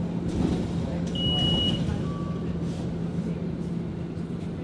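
Scania city bus running along the street, heard from inside the passenger compartment: a steady engine hum under road and body noise. Just over a second in, a single high electronic beep sounds for about half a second.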